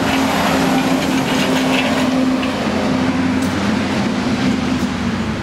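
Steel engine hoist rolled on its casters across a rough concrete driveway with a hanging outboard motor, a steady rattling rumble. Under it runs the steady hum of a bus engine.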